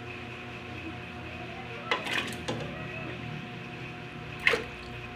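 Squash chunks tipped from a bowl dropping into a pot of broth: a short cluster of splashes and knocks about two seconds in, and one more near the end.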